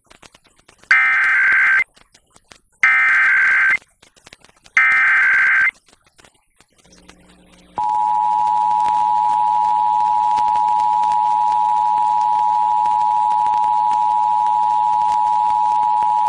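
Emergency Alert System test on FM radio: three one-second bursts of the SAME header's warbling digital data tones, about a second apart, then, about eight seconds in, the EAS two-tone attention signal (853 and 960 Hz together) comes on and holds steady.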